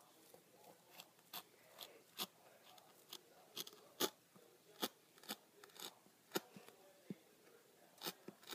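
Pen-style craft knife blade cutting the excess off woven strips against a cutting mat: a series of faint, sharp, irregular clicks, about two a second.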